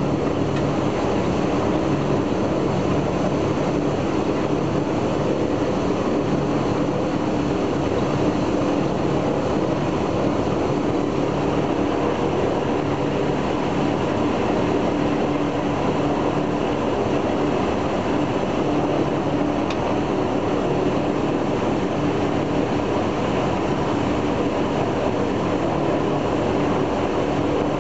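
The left Shvetsov ASh-82T 14-cylinder twin-row radial engine of an Il-14 running steadily during a ground run, heard from inside the cockpit as a steady low drone with no change in speed.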